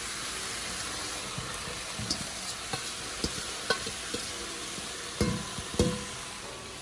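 Steady sizzle of callaloo cooking in a pot, with light clicks and scrapes as flaked saltfish is pushed off a stainless steel bowl into it. Two louder knocks with a short metallic ring come about five and six seconds in.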